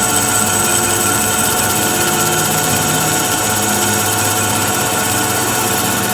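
Metalworking machine tool running steadily, a constant hum with a steady high whine over it.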